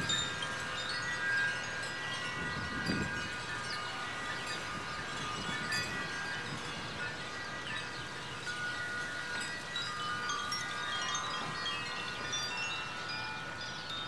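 Koshi wind chimes, bamboo tubes with tuned metal rods inside, ringing as the wind swings their clappers: many overlapping, sustained bell-like notes blending into a continuous shimmer. A few low gusts of wind hit the microphone in the first few seconds.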